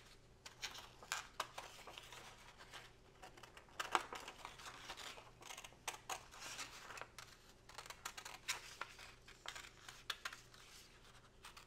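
Small scissors snipping around an oval in a sheet of craft paper: quiet, short cuts at irregular intervals, with the paper rustling as it is turned.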